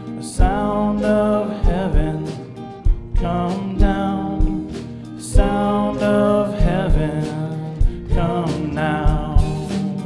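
Live worship music: a Fender electric guitar and drums, with a voice singing long, wavering held notes over regular drum hits.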